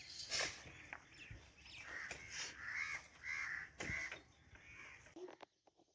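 A bird calling, a quick series of about five short harsh calls.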